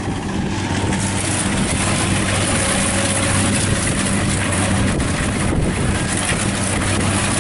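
Kubota 70 combine harvester's diesel engine running steadily with a low hum under the clatter of its cutting and threshing machinery as it harvests rice.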